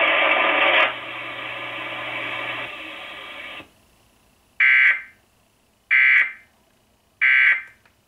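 Emergency Alert System data header (SAME tones) played through a television speaker: three short, identical screeching bursts of digital data about 1.3 s apart, marking the start of a Required Monthly Test. Before them the programme sound drops about a second in and cuts out.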